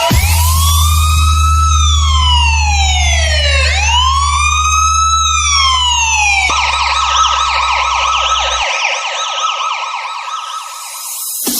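Electronic police siren sound effect, bass boosted: two slow wails rising and falling, then a fast yelp from about six and a half seconds in. A steady deep bass drone runs beneath it and cuts off about two seconds after the yelp starts.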